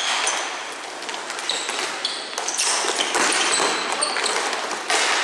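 Ball hockey play: sticks and the ball knocking on the playing surface in a quick irregular clatter, with brief high squeaks.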